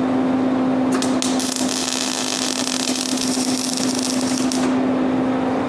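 MIG welding arc from an ESAB Migmaster 250 laying a short bead on a steel chain hook and tractor bucket: a steady crackling hiss that strikes about a second in and stops near the end, over a steady low hum.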